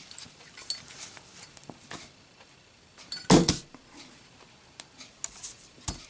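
Zippo lighter with a brushed chrome case and steel insert being worked: small metallic clicks of the hinged lid, one loud strike a little past the middle, and sharp clinks near the end as the lid drops shut on the lit flame and snuffs it.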